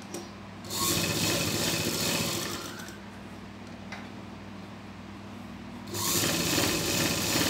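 Sewing machine stitching in two runs: one from just under a second in that fades out after about two and a half seconds, and another starting about six seconds in. A light click comes shortly before each run.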